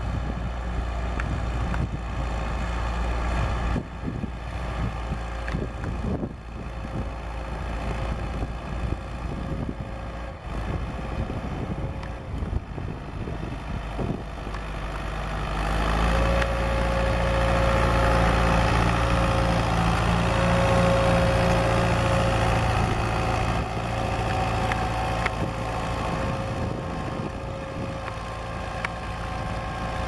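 David Brown 990 Selectamatic tractor engine running steadily under load while pulling a plough through the soil. It grows louder about halfway through as the tractor comes close, then eases off a little.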